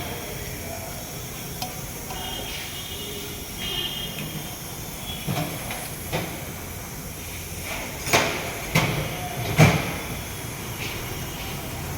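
Hand work on a drum brake's shoes (liners): rubbing and scraping as the parts are wiped clean, with scattered clicks and a cluster of three sharp metal knocks past the middle, over a steady hiss.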